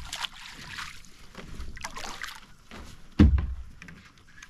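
Kayak paddle strokes swishing in the water, with one loud thump about three seconds in.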